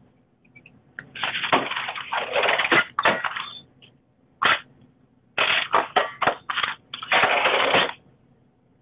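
Rubbing and rustling noise from a phone being handled close to its microphone, in three bursts: a long one starting about a second in, a short one in the middle, and another long one near the end.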